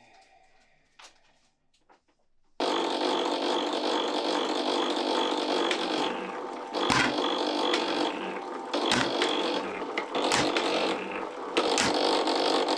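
A metalworking machine in a copper-pan workshop starts running suddenly about two and a half seconds in. It gives a steady hum with a high whine over it, and sharp knocks come every second or two.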